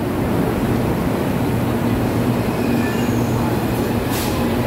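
Electric light-rail train standing at the platform, its equipment giving a steady low hum with a held tone, and a short hiss about four seconds in.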